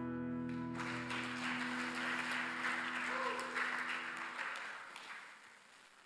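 The last chord of a guitar-led worship song rings out and stops under a second in, then the congregation applauds, dying away by about five seconds in.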